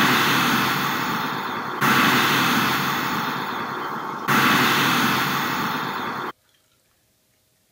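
Countdown sound effect: three heavy whooshing hits, one per number. The first is already fading at the start, two more strike about two and a half seconds apart, each dying away, and the sound cuts off abruptly about six seconds in.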